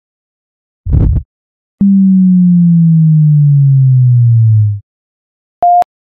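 Synthesized logo-intro sound effects. A short low noisy thud comes about a second in. It is followed by a pure sine tone that slides steadily down in pitch over about three seconds, and then one brief higher beep near the end.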